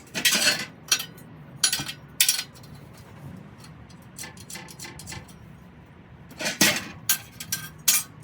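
Scrap steel pieces clanking and clinking as they are handled and knocked together: several sharp metallic hits in the first couple of seconds and again near the end, over a steady low hum.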